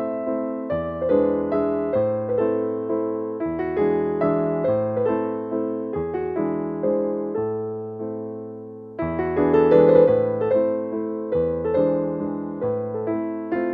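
Background instrumental piano music: a gentle melody over chords and bass notes, each note struck and fading. The music briefly softens, then comes back louder about nine seconds in.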